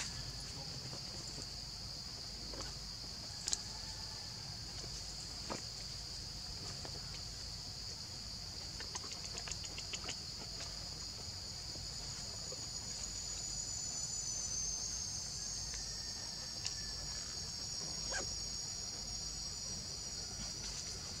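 Steady, high-pitched chorus of insects, with a few faint clicks now and then.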